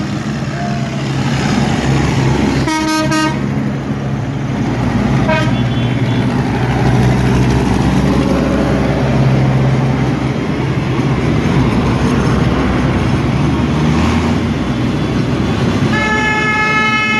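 Tractor engines running steadily, with horn toots over them: a short blast about three seconds in, a brief one about five seconds in, and a long horn blast starting near the end.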